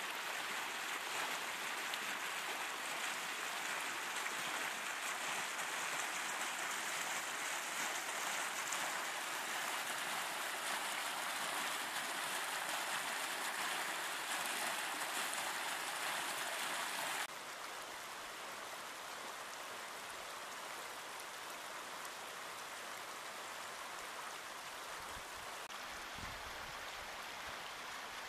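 Shallow creek water running over a smooth granite slab and a gravelly bed: a steady rush of flowing water that steps down to a quieter rush about two-thirds of the way through.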